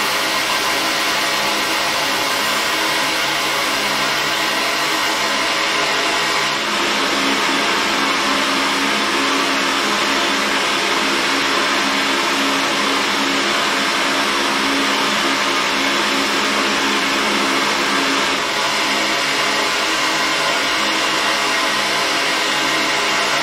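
Fiber laser engraving machine running, a steady fan-like whoosh over a low hum; the hum steps up in pitch about six seconds in and drops back near eighteen seconds.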